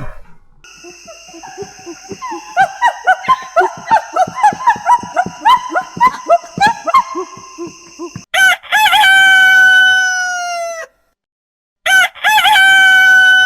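Chickens clucking in a rapid run of short calls, several a second, then a rooster crowing twice, each crow a long call of about two and a half seconds.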